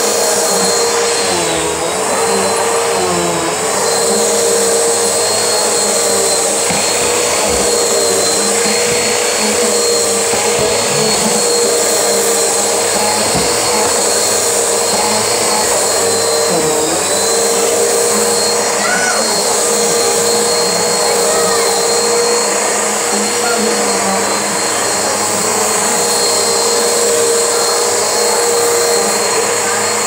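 Bissell vacuum cleaner running with a steady motor whine, its pitch dipping briefly about two seconds in and again just past halfway.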